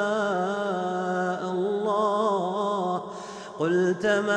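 A male reciter chanting Quranic verses in melodic tajweed style, drawing out long, wavering notes. He breaks off briefly about three seconds in, then resumes.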